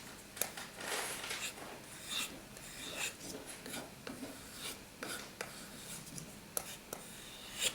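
Knife blade being drawn across a sharpening surface: an irregular series of short scraping strokes, about a dozen, as the edge is honed.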